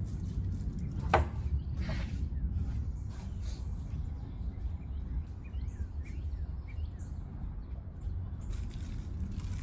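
Small birds chirping faintly over a steady low outdoor rumble, with a sharp knock about a second in.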